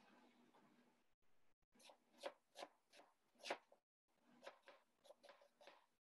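Chef's knife dicing an onion on a wooden chopping board: faint, quick knocks of the blade on the board in two runs of about five or six strokes each, with a short break between.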